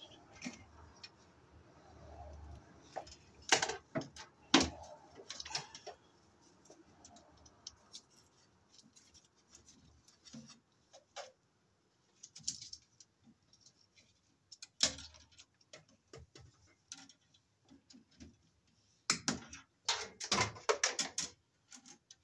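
Irregular clicks, taps and rustles of electrical cable and hand tools being handled at the panel. The loudest come in two spells: a couple a few seconds in, and a quick run of clicks near the end.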